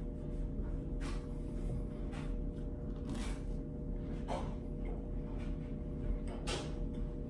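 Crisp toasted swirl bread being bitten and crunched while chewing, in several separate crunches about a second apart, over a steady faint hum.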